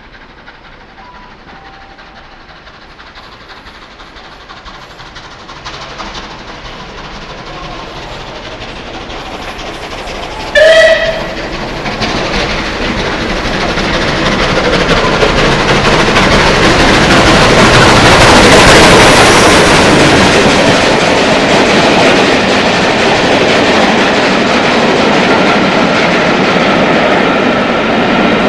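Southern Railway Merchant Navy Class steam locomotive 35028 Clan Line approaching and running through the station at speed, growing steadily louder. It gives one short whistle blast about a third of the way in. The locomotive passes loudest about two-thirds through, and the Pullman coaches roll steadily past after it.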